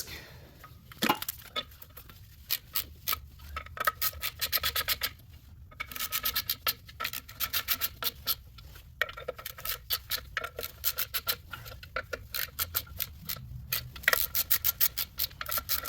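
Hand ratchet clicking in quick runs of sharp clicks, with pauses between, as the clutch pressure plate bolts are run down snug against the disc and flywheel.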